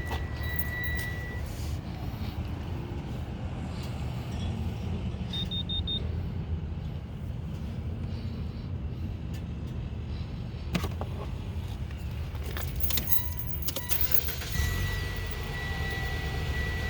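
Car engine idling, heard from inside the cabin, a steady low rumble. A quick electronic triple beep sounds about five seconds in, and a few clicks and a jangle of keys come later on.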